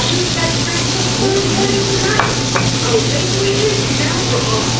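Pieces of coated lionfish frying in hot oil in a small pan on a gas stove: a steady, even sizzle.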